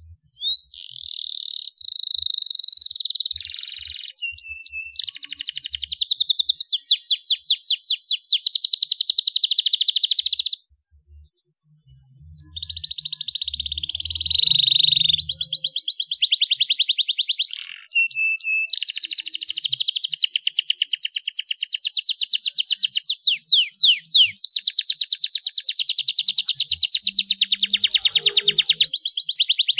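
Domestic canary singing a long, high-pitched song of rapid trills and rolling phrases, with short pauses about eleven and eighteen seconds in.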